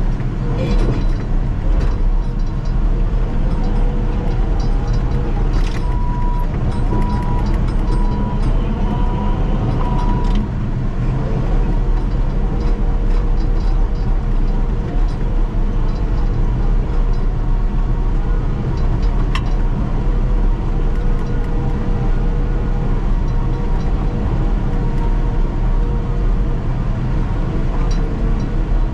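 Caterpillar D6K2 XL bulldozer's diesel engine running steadily under load as it works, with a short run of high beeps about six to ten seconds in.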